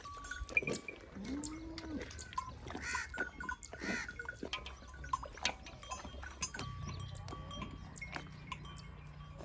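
Metal neck bells on feeding cattle clinking and ringing irregularly, with a short animal call about a second in.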